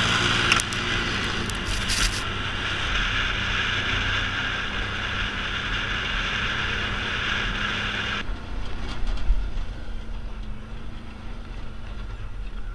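ATV engine running steadily while riding a gravel trail, with rushing wind and tyre noise. The rushing drops away abruptly about eight seconds in, leaving the engine's hum.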